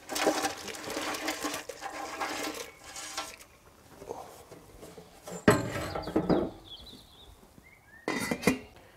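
Live signal crayfish clattering and sliding out of an aluminium tray into a pot of rapidly boiling water for about three seconds. About five and a half seconds in comes a loud knock, then a metal clink near the end as the stainless lid goes onto the pot.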